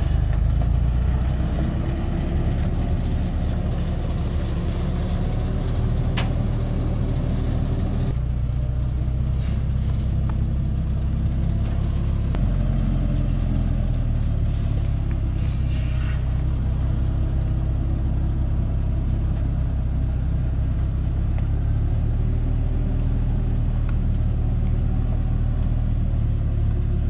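Heavily loaded logging truck's engine running steadily under load as it crawls along a rutted dirt track, with a couple of sharp clicks in the first few seconds.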